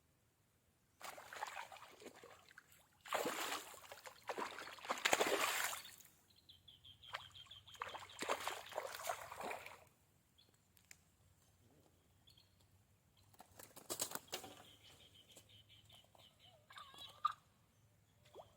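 Water splashing and sloshing in several irregular bursts, the loudest a few seconds in, typical of a hooked fish thrashing at the surface. A faint high trilling call repeats between the splashes.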